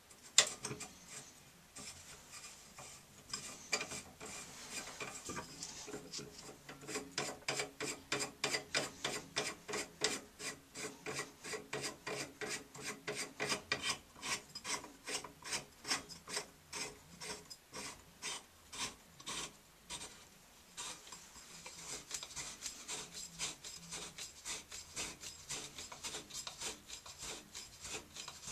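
Parts of a Price Pfister shower valve trim being twisted and worked by hand at the valve stem. It makes a repeated rasping scrape of about two strokes a second, loudest through the middle, with a softer rubbing hiss near the start and again later.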